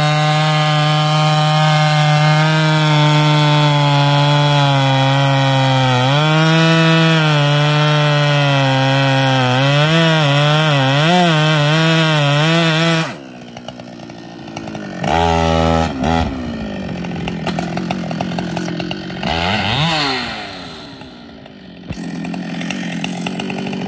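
Ported Husqvarna 395XP two-stroke chainsaw cutting through a large elm log at full throttle, its engine note dipping and wavering under load late in the cut. About thirteen seconds in it drops to idle, then is revved briefly twice, the second time rising and falling, before idling again.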